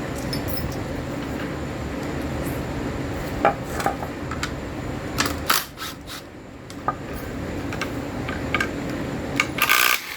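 Metal hand tools and parts clinking and clattering in several separate knocks, the loudest cluster near the end, over a steady low hum.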